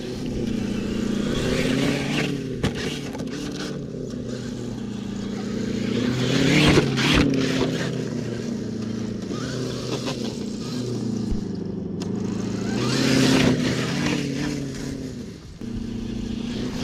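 Traxxas TRX-4 2021 Ford Bronco RC truck driving across grass, its drive sound revving up and down in pitch as the throttle is worked, loudest about a third of the way in and again a little past the middle.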